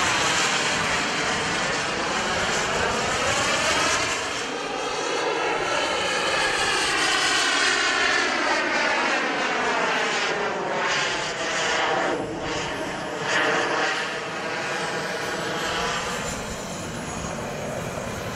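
Small gas-turbine engine of a radio-controlled model jet, a steady whine and hiss that sweeps up and down in pitch as the jet flies past and comes in to land, growing a little quieter near the end.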